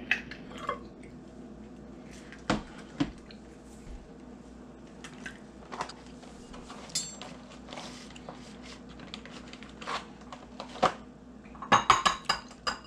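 Dishes and utensils handled on a kitchen counter: scattered clicks, knocks and clinks, one brief ringing clink partway through, and a short burst of clatter near the end. A faint steady hum runs underneath.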